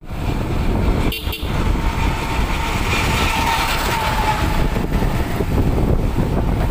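Wind buffeting the microphone and road noise from a vehicle moving along a paved road, a steady low rumble with a brief dip about a second in and a faint whine in the middle.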